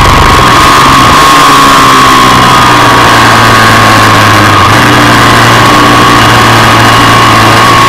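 Ducati 748's 90-degree V-twin engine running loud and steady at high revs on track, heard from an on-board camera with heavy wind rush over the microphone.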